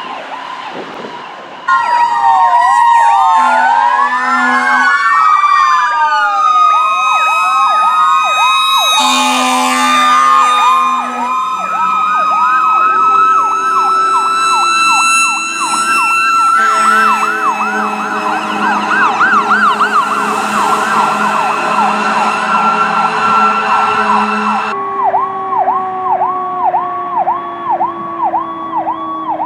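Emergency vehicle electronic sirens sounding the Powercall tone, a fast repeated whoop that swoops up and down in pitch, with other sirens sweeping up and down over it. Two steady air-horn blasts of about a second and a half come about three and nine seconds in. The sound changes abruptly several times as clips are cut together.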